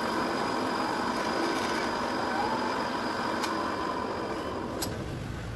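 Drill press running steadily, its cutter working a white block clamped in a cross-slide vise. Two sharp clicks come near the end, and the steady whine fades out about five seconds in.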